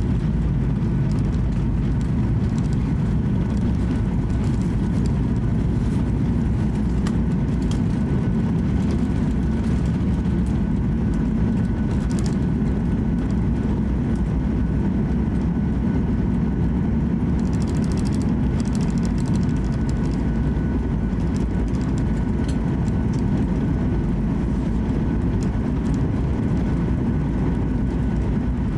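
Cabin noise inside a Boeing 737-800 rolling along the runway after landing and taxiing: a steady low rumble of engines and wheels with a faint steady whine above it. A spell of light rattling comes about two-thirds of the way through.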